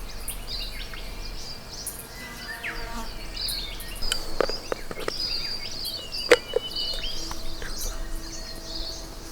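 Birds calling and chirping in a busy morning chorus, many short, quick notes overlapping, with a few sharp clicks or knocks near the middle.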